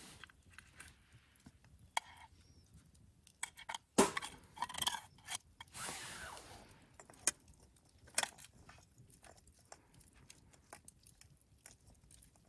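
A metal spork clinking and scraping against a metal camp pot as food is stirred, with scattered sharp crackles from a wood fire burning in a small steel brazier. The loudest clink comes about four seconds in, followed by a couple of seconds of busier scraping.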